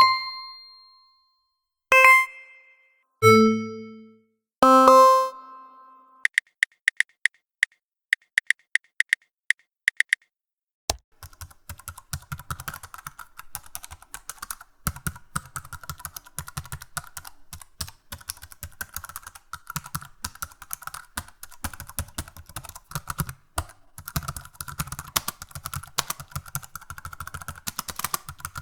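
A few separate chime-like dings in the opening seconds, then a short run of evenly spaced ticks, about three a second. After that comes a long stretch of rapid computer-keyboard typing, the loudest and longest sound.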